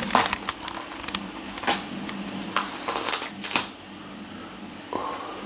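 Crinkling and crackling of a Christmas cracker's paper wrapping as a Yorkshire terrier chews and tugs at it, in irregular bursts that stop about three and a half seconds in.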